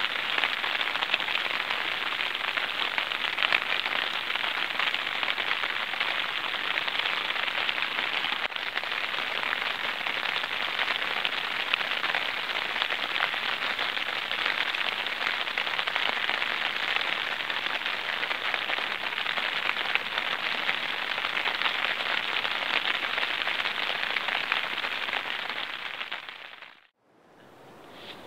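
Rain falling on a tent's flysheet, heard from inside the tent: a dense, even patter of many small drop hits. It fades out near the end.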